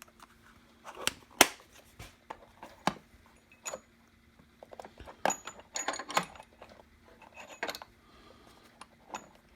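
Screwdriver bit set being handled: irregular sharp clicks and light metallic clinks of small steel bits and a bit holder in their case, the loudest knock about a second and a half in.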